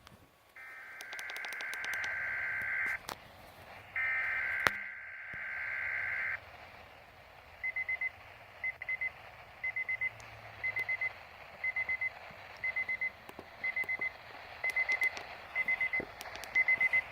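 Emergency alert system tones: two long bursts of buzzy data tones lasting about two seconds each, then a run of short high beeps in quick groups of about four, repeating about once a second, over a steady hiss.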